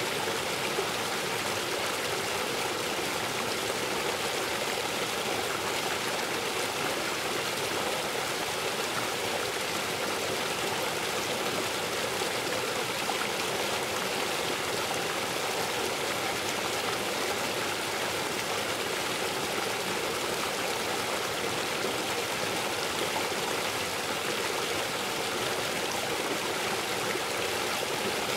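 Waterfall and river water rushing over rocks: a steady, unbroken roar of flowing water.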